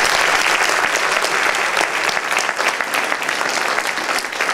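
Audience applauding, a dense clapping that eases off slightly toward the end.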